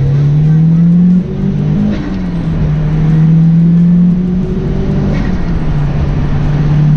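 Mitsubishi Lancer Evolution VIII's turbocharged four-cylinder accelerating hard, heard from inside the cabin, making about 20 psi of boost from a newly fitted manual boost controller. The engine note climbs with two brief dips in the first two seconds, holds steady, then the throttle is lifted about four seconds in and the engine runs on at a lower, steady note off boost.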